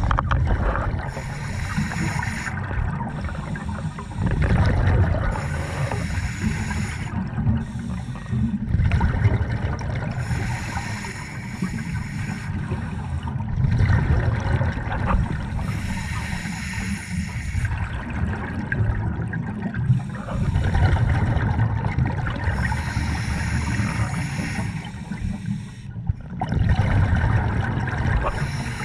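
Open-circuit scuba regulator breathing underwater: a bubbling burst of exhaust bubbles with each exhalation, roughly every three to four seconds, over a steady low underwater hiss.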